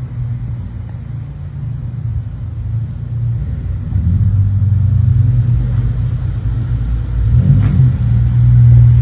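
Car engines of a Honda Accord Euro R and a VW Golf GTI rumbling at low revs as the cars pull away. The rumble gets louder about four seconds in and swells again near the end.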